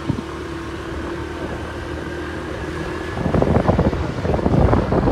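Two-wheeler engine running steadily while riding. About three seconds in, wind starts buffeting the microphone, a choppy rumble that grows louder and covers the engine.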